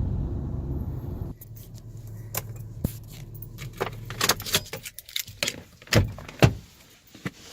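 A car's low steady hum stops about a second and a half in. A scatter of sharp clicks and rattles from handling in the car follows, jangling like keys.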